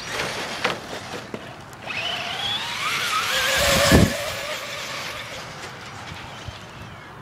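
Electric RC truck's motor whining as it speeds up and passes, the pitch rising, with tyres hissing on dirt. It is loudest with a thump about four seconds in, then fades.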